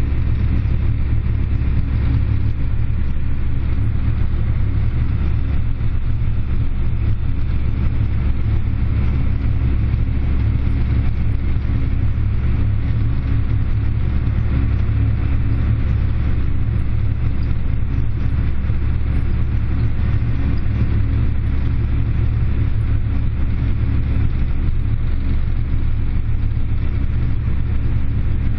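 Tractor engine running steadily under load, a continuous low drone heard from inside the closed cab.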